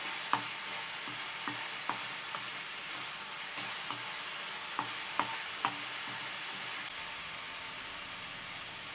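Ash gourd halwa sizzling in ghee in a nonstick kadai while a wooden spatula stirs it, with scattered light knocks of the spatula against the pan. The stirring stops about six seconds in and the steady sizzle goes on.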